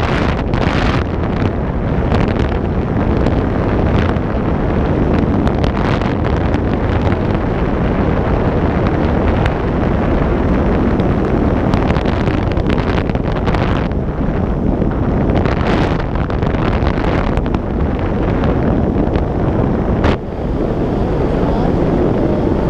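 Wind buffeting a camera microphone during a parachute descent under an open canopy: a loud, steady rush with irregular crackles, dipping briefly near the end.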